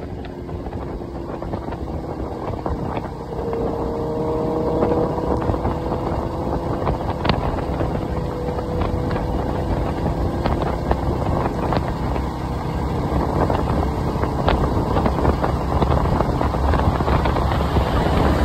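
Wind rushing over the microphone of a moving motorcycle, with the engine's steady hum underneath. It grows somewhat louder toward the end.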